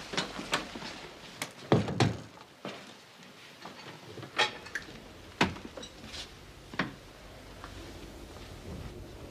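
Quick steps on a hard floor, then a door thudding shut about two seconds in, followed by a few separate sharp clicks and knocks of the door latch and handle as the door is opened again.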